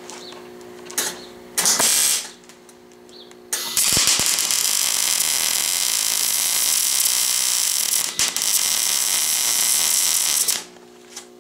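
Wire-feed welder arc crackling while welding a seam on a sheet-steel belt guard: a short burst of about half a second about two seconds in, then a steady run of about seven seconds that cuts off shortly before the end.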